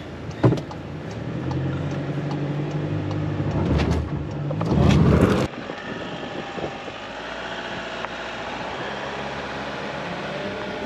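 VW Crafter camper van's diesel engine pulling uphill, heard inside the cab, with a sharp click about half a second in and the engine growing louder before cutting off abruptly about five seconds in. Then steady wind and tyre noise, as heard from outside the moving van.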